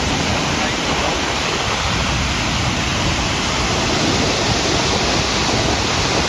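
A steady rush of water from the huge jet pouring out of the face of Buffalo Bill Dam and crashing into the river gorge below. The release is heavy because rain has filled the reservoir.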